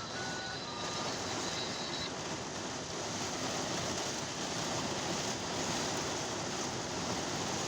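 Rain falling on a vehicle's windshield and roof, heard from inside: a steady rushing hiss that grows a little louder after the first second. A few faint short tones sound in the first two seconds.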